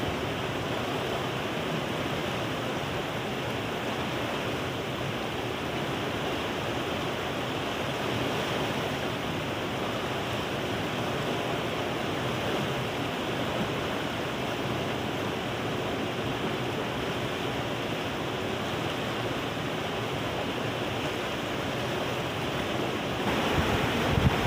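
Steady rushing of a fast mountain river running over rapids, an even, unbroken roar of water.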